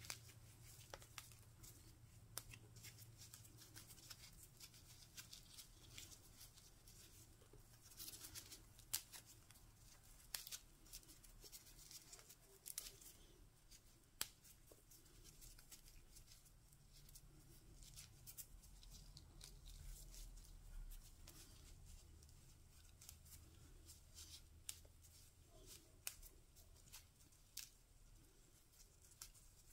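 Faint, irregular crackling and rustling of gloved hands tearing dry soil and old roots off a succulent's root ball, with a low steady hum underneath.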